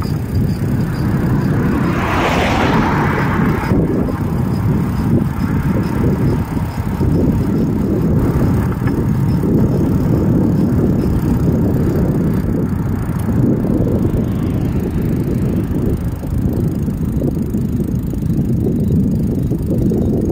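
Wind buffeting the microphone of a bicycle-mounted camera while riding, with the rumble of the tyres on asphalt. A brief hissing rush rises and fades about two to four seconds in.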